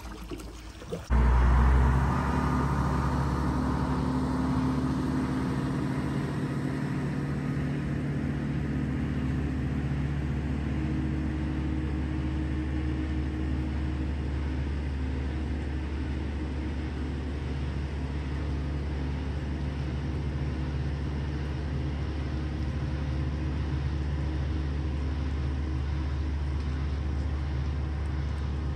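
The engine of the tow vehicle hauling a catamaran on its hydraulic trailer up the ramp by a chain, running steadily with a low, even drone. It starts abruptly about a second in, after a brief quieter moment.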